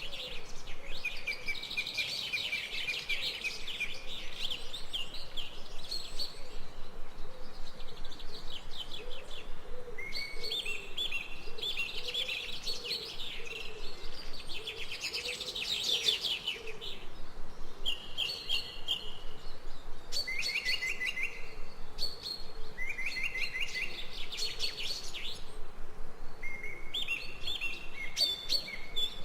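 Songbirds chirping in fast, high trills, phrase after phrase with short pauses, several overlapping at times.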